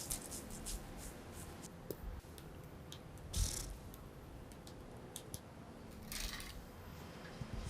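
Foley sound effects for an animated film scene: scattered small clicks and taps, with a short loud rustling swish about three and a half seconds in and a longer swish about six seconds in.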